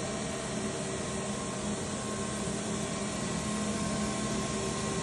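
Steady machine hum with several constant tones over an even background noise, unchanging throughout: the drone of running machinery or fans in a machine shop.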